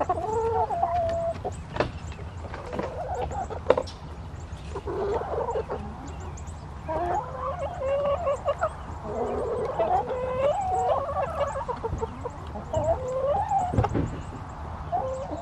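Hens clucking and chattering, one wavering call after another, with a few sharp clicks among them.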